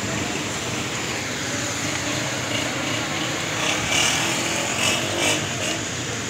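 Street noise of motorcycles riding past through a crowd, engines running under the murmur of many voices, with a few louder, higher-pitched bursts from about four to five seconds in.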